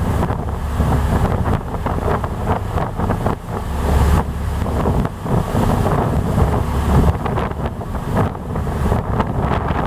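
Wind buffeting the microphone in uneven low rumbling gusts on a moving ferry, over the steady wash of water and the ship's running noise.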